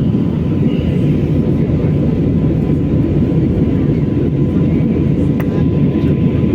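Steady low cabin noise of a jet airliner in flight, engines and airflow heard from inside the cabin, with a faint steady tone above it. There is one sharp click about five seconds in.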